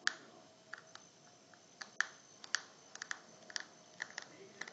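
Light, irregular clicks of a small precision screwdriver working a slightly stuck screw out of a Galaxy Nexus's plastic rear frame, about a dozen small ticks of metal on screw and plastic.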